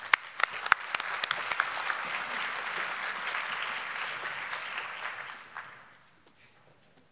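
Audience applause: a few loud single claps at first, then a steady round of clapping that fades out about six seconds in.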